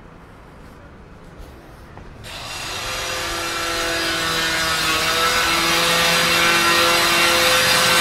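A power tool starts about two seconds in, running with a steady whine and hiss that grows louder.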